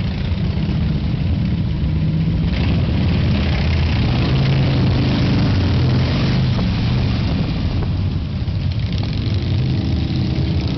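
Loud vehicle engines running. A rush of higher-pitched noise comes in suddenly about two and a half seconds in, and there is a brief dip near the end.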